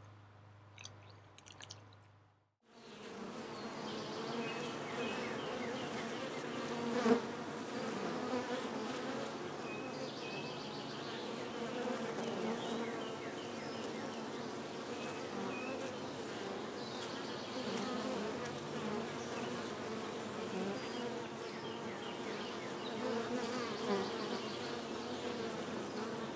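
Faint trickle of water from a watering can onto a potted planter, then from about two and a half seconds in a dense, steady buzzing of many honeybees flying around a hive entrance. A single sharp click sounds about seven seconds in.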